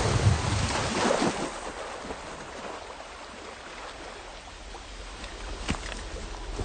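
Splashing, rushing water, loudest in the first second and a half, then settling into a low steady hiss, with a single sharp click near the end.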